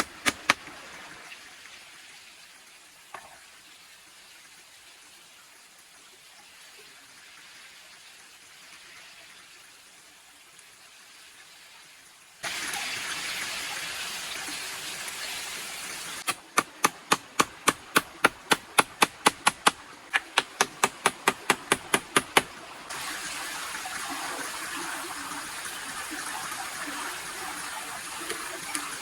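A few sharp strikes, then a quiet stretch, then a steady rushing noise like running water that starts suddenly about halfway through. Over it come two runs of rapid, regular sharp strikes, about four a second, lasting a few seconds each.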